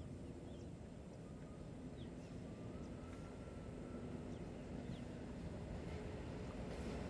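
WAG-9H electric freight locomotive approaching from a distance: a low rumble with a faint steady hum, slowly growing louder. A few faint bird chirps over it.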